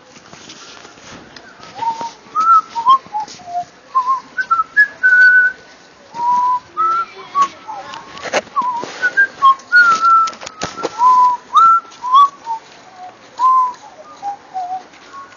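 A person whistling a tune: a string of short, clear notes that glide up and down, with a couple of sharp knocks near the middle.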